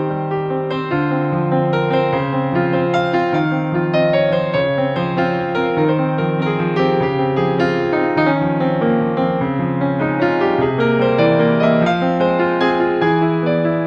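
Background music: a keyboard playing a flowing run of notes at an even level.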